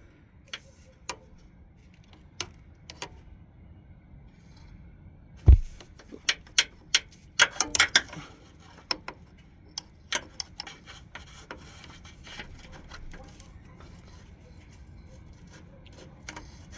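Scattered metallic clinks and knocks of hand tools and steering parts being worked on, with one heavier knock about five and a half seconds in and a quick run of clinks a couple of seconds later.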